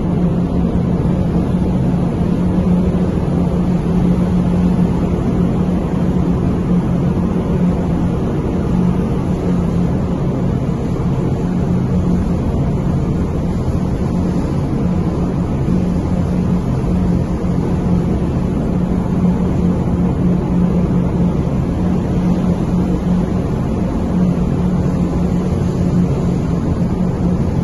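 Steady low drone of a container ship's engines and machinery, an even hum with a constant rush of noise over it.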